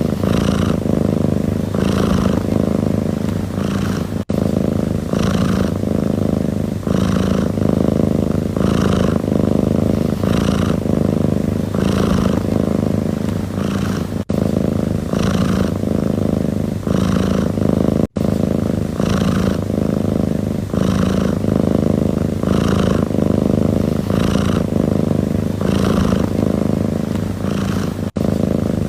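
Domestic cat purring continuously, close up. The low purr swells and eases with each breath, about once a second, and breaks off momentarily a few times.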